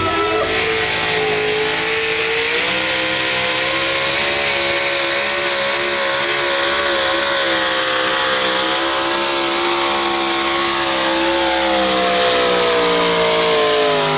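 Two-wheel-drive pulling truck's engine running at full throttle while dragging a weight-transfer sled. The pitch rises slightly a few seconds in and holds high, then slowly drops over the last few seconds as the truck slows under the load.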